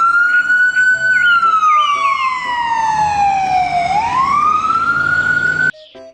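Ambulance siren wailing: the pitch rises, falls slowly for about three seconds, then rises again before cutting off suddenly near the end.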